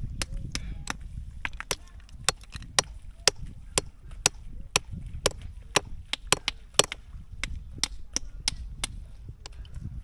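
Sharp, hard knocks of a blade striking a spider conch shell, about two to three a second and steady throughout, as the shell is worked open to cut out the meat.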